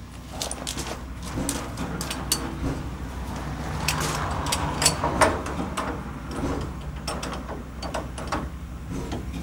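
Metal clanks and clicks of a steam-heating pipe coupling being handled and joined between a steam locomotive and the first coach, over a steady low hum.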